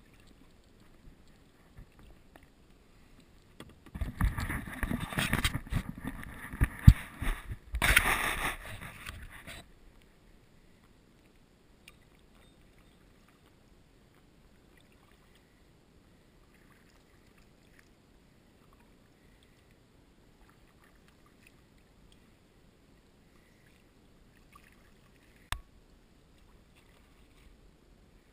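Kayak paddling: for about six seconds the paddle splashes and knocks against the kayak hull, with two sharp knocks. Then comes a long, quiet glide with one sharp knock near the end.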